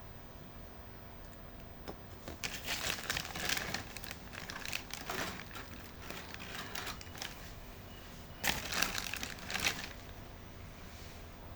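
Packaging crinkling as it is handled, in a long bout from about two seconds in and a second, louder one near the end.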